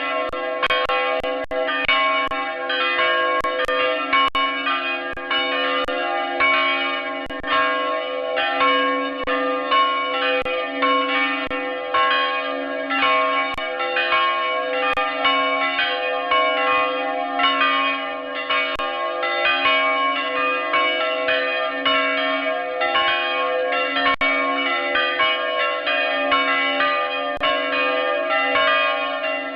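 Church bells ringing, many strokes following closely and overlapping, steady with no pause.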